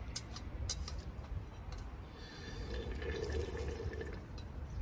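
Fish soup being drunk straight from a tilted stainless steel pot: liquid sloshing against the metal and swallowing. A few light clicks come in the first second, and a longer stretch of drinking runs from about two seconds in to four.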